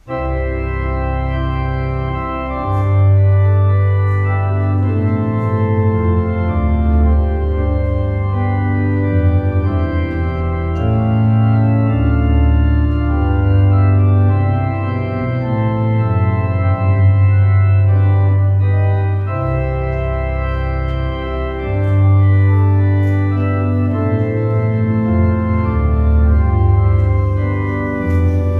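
Church organ playing the closing voluntary: loud, sustained full chords over a deep pedal bass, coming in suddenly and changing chord every second or two.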